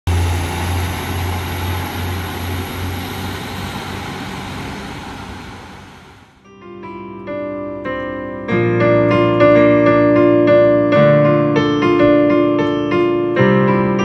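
A steady rumbling noise with a low hum fades away over about six seconds. Solo piano music then comes in, starting sparsely and filling out with fuller chords about two seconds later.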